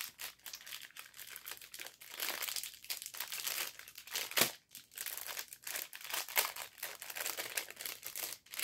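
Clear plastic bag crinkling and crackling as hands open it and slide out a stack of patterned paper, in irregular rustles with one sharper crackle about four and a half seconds in.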